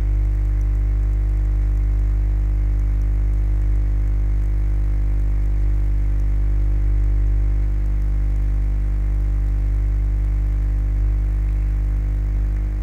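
Steady electrical hum, low and unchanging, with a stack of higher overtones over a faint hiss.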